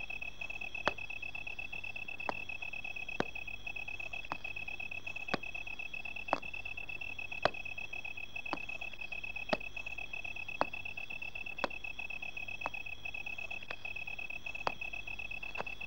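Steady high-pitched cricket trill with a sharp tick about once a second throughout.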